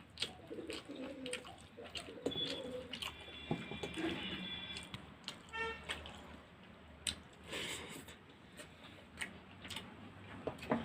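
Pigeons cooing in the first second or so, with higher calls a few seconds in. Throughout are sharp clicks and wet smacks of a person eating rice and greens by hand.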